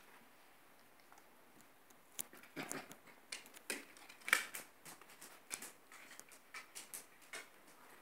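Bearded collie puppies and an adult bearded collie playing and scuffling: irregular light clicks, taps and scuffles of paws and bodies on the floor and bedding, starting about two seconds in.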